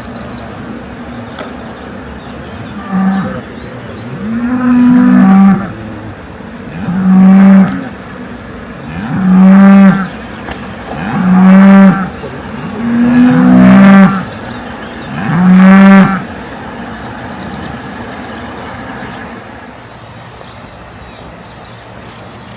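A cow mooing loudly, over and over: seven drawn-out calls about two seconds apart, each swelling up and then cutting off.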